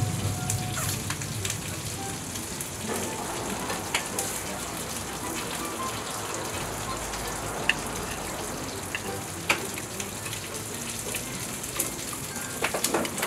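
Steady sizzling of pork belly and kimchi frying on a foil-lined tabletop griddle, with a few sharp clicks of chopsticks against the dishes.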